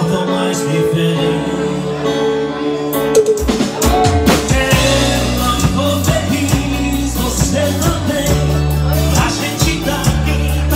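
Live band music: acoustic-electric guitar strumming over low bass notes, with the drum kit coming in about three seconds in with steady cymbal and drum hits.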